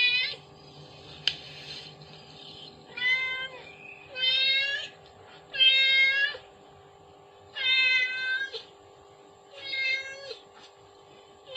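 A cat meowing over and over: about six short calls a second or two apart. A single sharp click comes about a second in.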